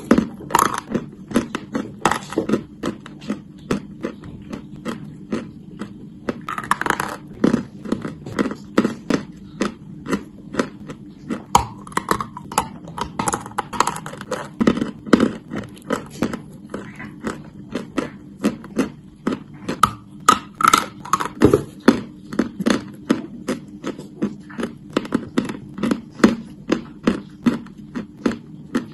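A person biting and chewing chalk close to the microphone: a steady run of crisp crunches, about two to three a second.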